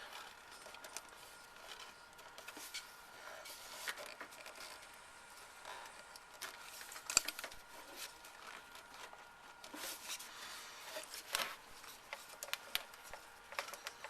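Faint scattered clicks, light knocks and rustling as a snug motorcycle spark plug cap is worked back and forth by hand to free it, with one sharper click about seven seconds in.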